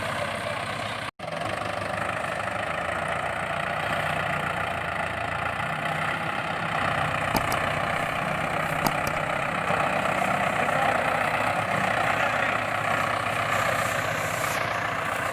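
A motor running steadily, cut off for an instant about a second in, with two faint clicks near the middle.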